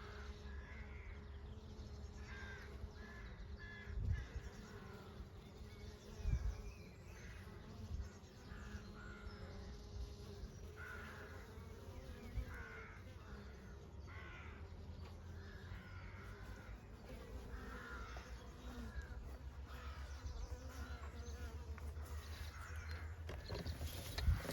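Honey bees buzzing steadily, with birds calling intermittently over the hum and a few dull low thumps.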